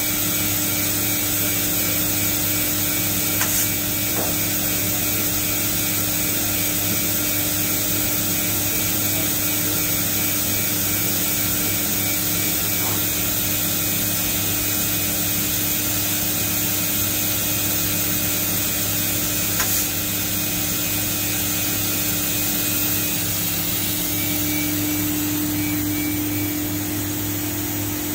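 Roku-Roku Sanyo HC-658 vertical machining center running under power: a steady mechanical hum with a high hiss, with two faint clicks.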